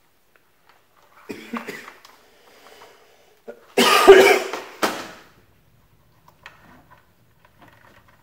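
A man coughs hard about four seconds in, then gives a second, shorter cough. Faint small clicks follow from handling the plastic box.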